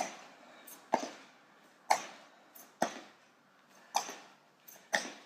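Feet landing on the floor during jumping split lunges: a thud about once a second, some with a lighter tap just before.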